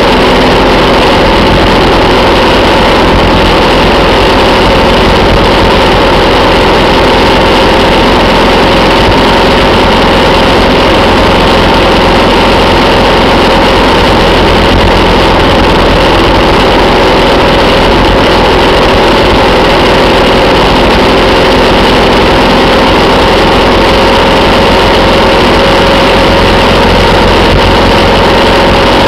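Motorcycle engine and wind noise at a steady highway cruise, loud and unchanging.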